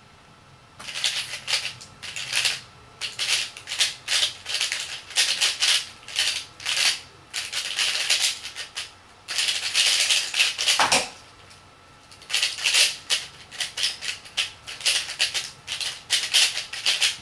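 Moyu LiYing 3x3 speed cube being turned rapidly: fast plastic clacking and rattling of the layers in quick flurries, starting about a second in, with a brief pause about eleven seconds in before the turning resumes.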